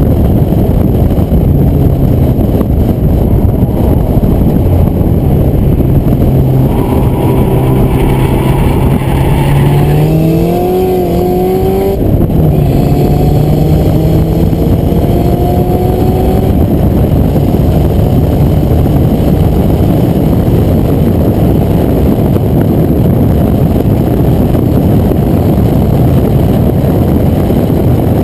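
Porsche 944 Turbo's turbocharged inline-four under way on track, against a heavy, steady rush of wind and road noise. Partway through, the engine note climbs under acceleration, drops suddenly at an upshift, climbs again for a few seconds, then sinks back into the rush.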